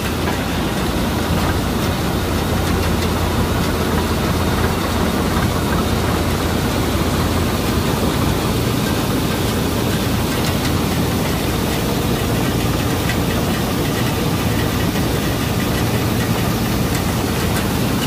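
Combine harvester running steadily while its unloading auger pours wheat grain into a tractor trolley: an even, loud machine noise with a low hum.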